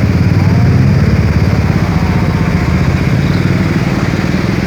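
A small engine running steadily with a rapid, even low pulse.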